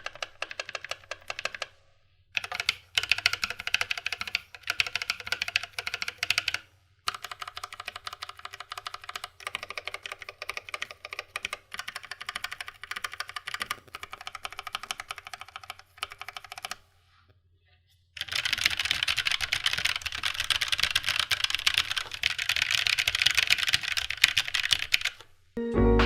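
Typing on a Keychron K3 Version 2 low-profile mechanical keyboard fitted with Keychron low-profile brown tactile switches. It gives rapid runs of key clicks a few seconds long, broken by brief pauses, and the last run is faster and louder.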